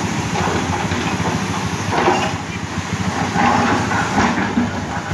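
Motorcycle engine running with a steady, rapid pulsing.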